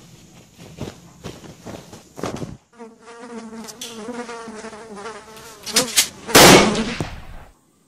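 A buzz like a flying insect's, wavering in pitch, lasts about three seconds. It is followed by a few sharp clicks and a loud noisy burst about a second long near the end.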